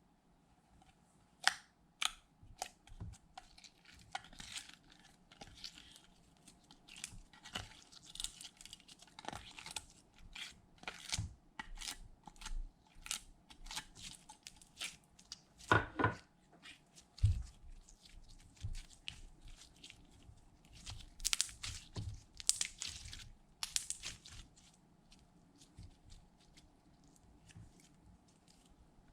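Slime being worked by hand, stretched, folded and pressed, giving irregular sticky crackles, clicks and small tearing sounds. The crackling grows denser and louder about two thirds of the way through.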